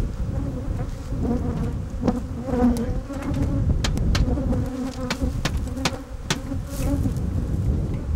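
Honey bees buzzing in large numbers, a steady hum, with a scattering of short sharp knocks through the middle and later part.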